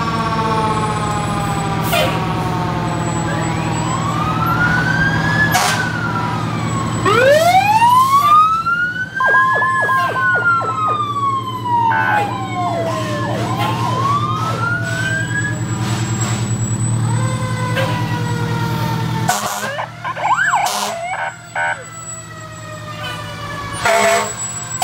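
Fire engine sirens sounding as the trucks pass, several at once, their pitch sweeping up and down in long wails with a fast chopped tone in the middle. Under them is the steady rumble of the fire trucks' diesel engines, which drops away about three quarters of the way through.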